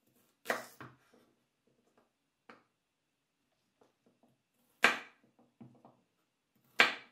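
Kitchen knife slicing through raw carrots onto a wooden cutting board: a few sharp, separate chops, three of them loud and about two seconds apart, with a softer cut and light taps in between.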